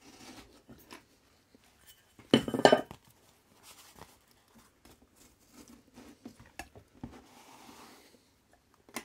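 Handwork with a craft knife and a foam rubber sheet on a wooden workbench: faint scraping and rustling of cutting and handling, with a brief, louder metallic clatter about two and a half seconds in.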